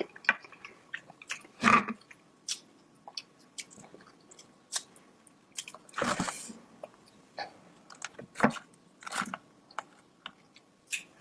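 Close-miked eating of a sauced seafood boil: chewing and biting with irregular sharp clicks, louder bites about 2, 6 and 8.5 seconds in.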